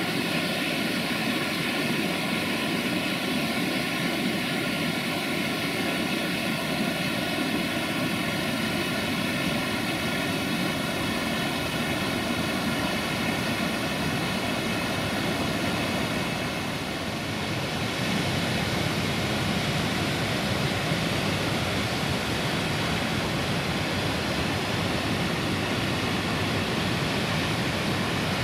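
Waterfall pouring into its pool, a loud, steady rushing of water; it dips briefly a little past halfway.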